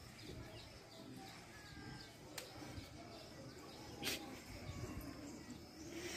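Quiet background ambience with a few faint short chirps and two sharp clicks, about two and a half and four seconds in.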